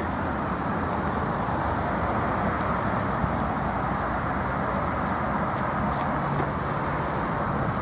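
Steady road traffic noise: an even rush of passing cars with no distinct events.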